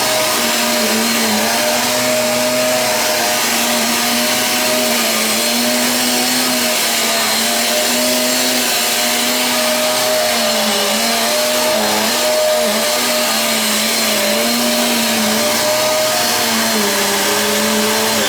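Eureka Airspeed One cyclonic upright vacuum cleaner running steadily as it vacuums a room, its motor whine wavering slightly in pitch.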